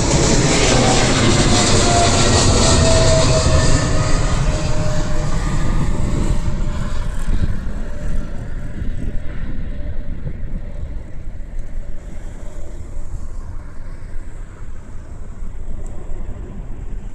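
Boeing 777 freighter's twin jet engines at takeoff power: a loud rumble with a whine falling in pitch as the aircraft goes past, then fading and growing duller over the last ten seconds as it climbs away.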